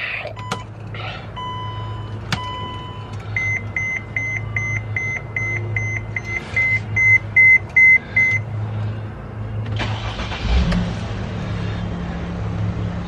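Dashboard warning chime of a Mercedes-Benz Sprinter-based bus beeping about three times a second for some five seconds, after a few single electronic tones. About ten seconds in, the engine cranks, catches with a low thud and settles into a steady idle, the bus starting after its battery was reconnected.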